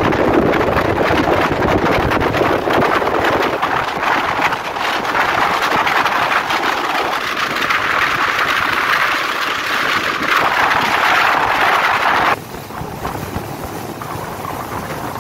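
Steady loud rushing noise aboard a speedboat under way: engine, water and wind buffeting the microphone. The rush drops suddenly and becomes duller about twelve seconds in.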